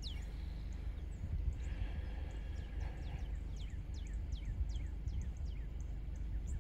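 Wild birds chirping, many short downward-sliding calls scattered throughout, over a low steady rumble.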